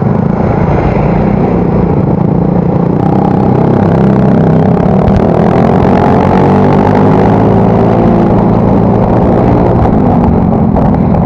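Yamaha Mio Soul GT single-cylinder scooter with an aftermarket exhaust, running on the road under heavy wind and road noise on the microphone. Engine pitch rises and falls again in the middle.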